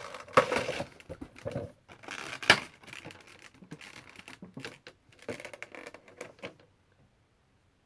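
Funko Pop packaging being handled: a quick run of irregular crinkles, taps and clicks that stops about six and a half seconds in.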